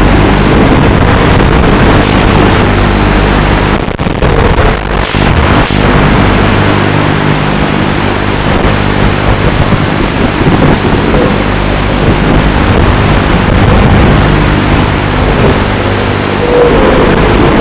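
FPV quadcopter's motors and propellers buzzing steadily, with air rushing past, heard from the drone's own camera; the sound drops briefly about four seconds in, then picks up again.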